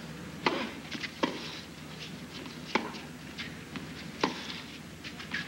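Tennis ball struck by rackets in a hard-court point: a serve, a quick return, then sharp pops about every second and a half as the rally goes on.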